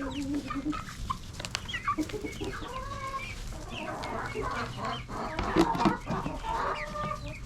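A flock of chickens clucking, with many short overlapping calls throughout.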